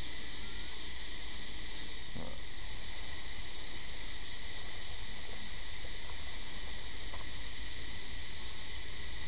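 Steady, high-pitched chirring of insects such as crickets, several held tones running on without a break, over a low rumble.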